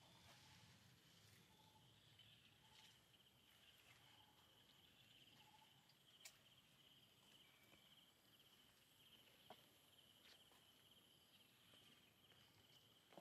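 Faint outdoor ambience: insects trilling steadily in a high, finely pulsing tone, with a couple of faint clicks about six and nine and a half seconds in.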